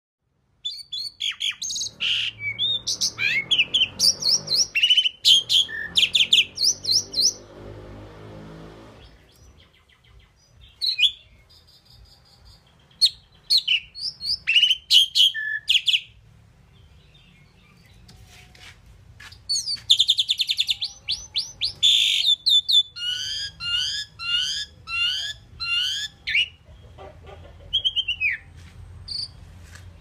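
Asian pied starling (pied myna) singing: a long, varied song of whistles, clicks and chattering, rattling notes in two bouts, with a pause of a few seconds about halfway.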